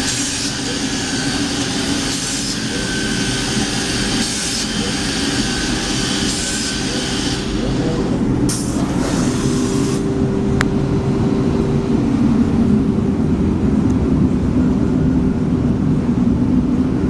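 Holzher ECO-MASTER CNC machining centre routing 18 mm birch plywood with a combined radius-and-chamfer cutter, a loud steady hiss of the cut. About halfway through the hiss thins out and stops, leaving the machine's steady lower hum.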